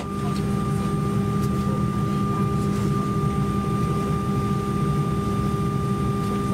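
Steady airliner cabin noise inside an Embraer E190: an even hum and air-conditioning rush with several constant tones, no rise or fall in pitch.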